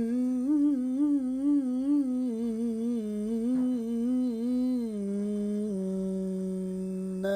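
A male voice chanting an unaccompanied ibtihal, Islamic devotional singing, in a long melismatic run on a single syllable with quick ornamental turns. About five seconds in it settles onto a long held lower note, and a new phrase begins right at the end.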